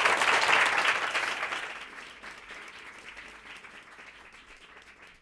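Audience applauding, loud at first, then dying away over the next few seconds to a few scattered claps.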